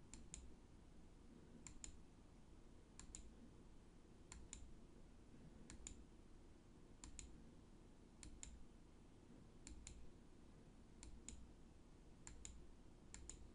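Near silence with faint, evenly spaced pairs of short clicks, about one pair every 1.3 seconds.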